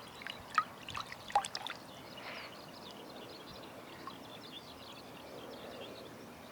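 Water trickling or pouring steadily, with a few sharp clicks in the first couple of seconds. Short high chirps repeat faintly throughout.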